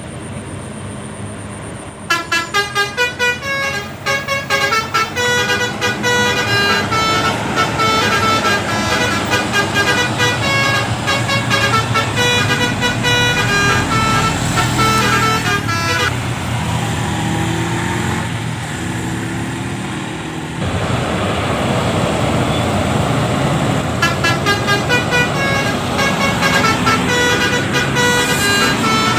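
Telolet multi-tone bus horn playing a quick tune of stepped notes. It starts with rapid short blasts and runs for about fourteen seconds. After several seconds of bus engine and traffic noise, the horn sounds again in quick blasts near the end.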